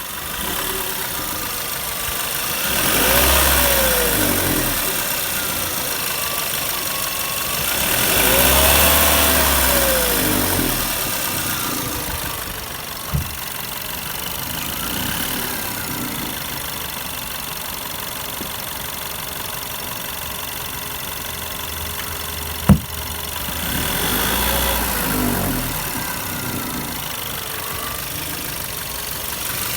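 Warm Volkswagen-group 1.4 TSI turbocharged four-cylinder petrol engine idling, its revs raised and let fall back three times, with two sharp clicks in between. The engine is being run to show extraneous noises when warm.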